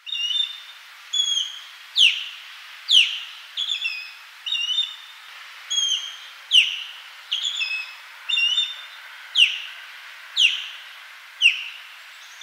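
Osprey calling: a run of sharp whistled calls. Loud, steeply falling notes about once a second alternate with groups of two or three short clipped notes.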